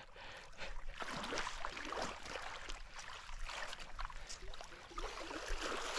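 Cast net being hauled back through shallow muddy water by its hand line, with irregular light splashing, swishing and dripping from the wet net and rope.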